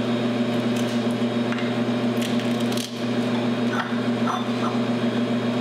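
A steady low hum fills the background, with a few faint, soft clicks and cuts of a small paring knife trimming Brussels sprouts.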